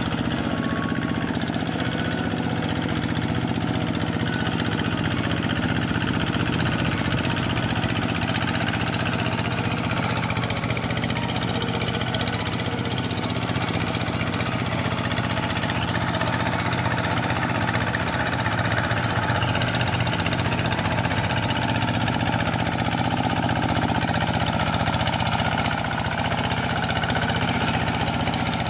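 Two-wheel hand tractor's single-cylinder diesel engine running steadily under load as it plows a flooded rice paddy on steel cage wheels.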